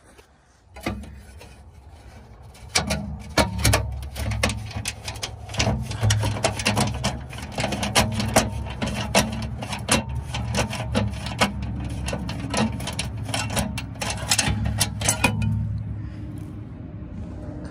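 Ratchet wrench clicking irregularly as the 12 mm skid-plate bolts under a Toyota 4Runner are backed out, over a steady low hum. The clicking stops a couple of seconds before the end.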